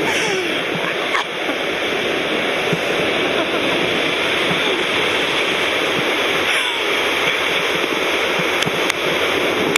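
Steady rushing noise of a fast, shallow river running over rocks, heard from the rope above it.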